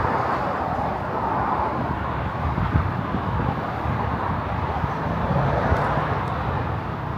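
Steady rush of road traffic, with vehicles passing and the noise swelling and easing a couple of times.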